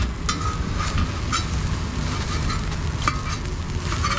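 A slotted steel spatula scraping and chopping an omelette on a flat iron griddle, with a few sharp scrapes and taps of metal on metal over the steady sizzle of frying egg.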